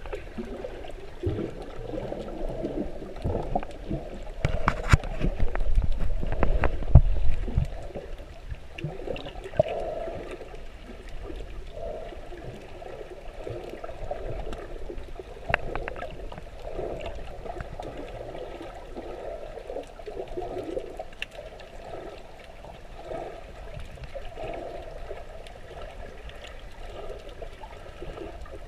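Water sloshing and bubbling as heard by a camera held underwater among kicking snorkelers, with a louder stretch of splashing and knocks about five seconds in.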